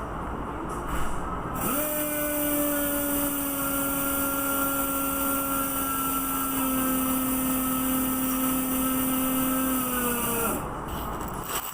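A motor-driven tool spinning up about two seconds in, running with a steady whine for about nine seconds, then winding down, over a constant machinery hiss.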